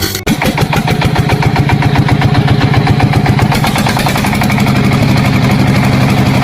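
A small engine running steadily with a fast, even pulsing beat. It starts abruptly about a quarter second in and settles to a slightly steadier pitch about four seconds in.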